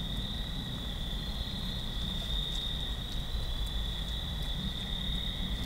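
Steady chorus of night insects such as crickets, one unbroken high-pitched trill, over a low rumble.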